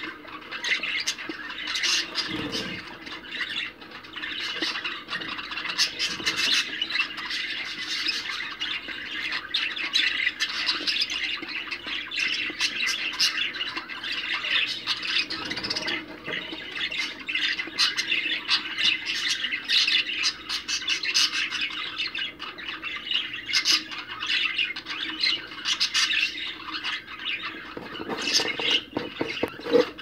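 A flock of budgerigars chattering: many short chirps and squawks overlapping without a break.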